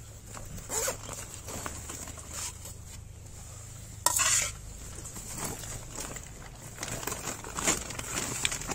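A plate and utensil clattering and scraping on a tiled floor as cat food is served out, with one sharp, loud clatter about four seconds in and small clinks and scrapes after it.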